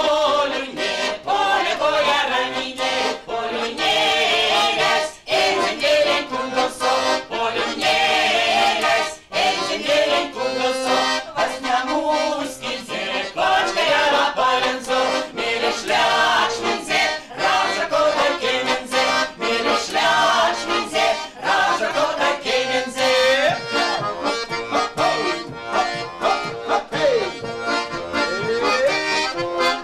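Accordion accompanying a group of women singing a Mordovian folk song together.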